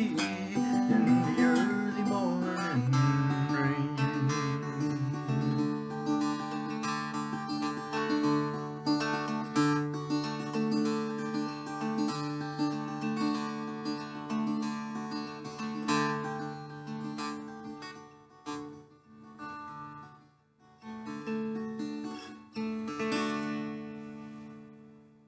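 Acoustic guitar strumming the closing chords of a song, with chords left ringing. The strumming thins out, and the final chord rings and fades away near the end.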